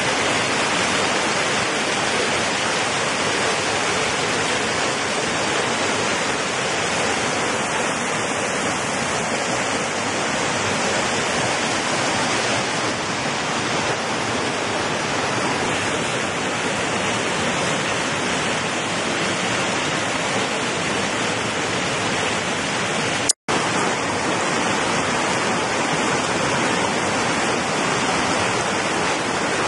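Mountain stream rushing over rocks in small cascades: a steady, even rush of falling water. The sound cuts out for an instant about three-quarters of the way through.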